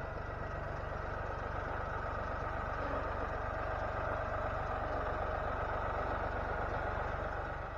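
An engine running steadily, fading away near the end.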